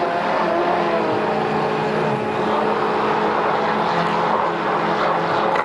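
Stainless-steel electric immersion (stick) blender running steadily in a tall plastic beaker, whipping milk, cheese, sugar and whipped-cream powder into a cream. A second electric mixer beating a sponge-cake batter runs at the same time.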